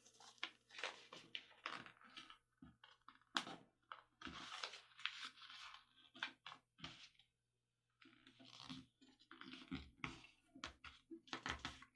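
A paper airplane wing being folded and creased by hand: faint crinkling and rustling of paper, with many short crackles as the fold is pressed flat, and a brief pause about two-thirds of the way through.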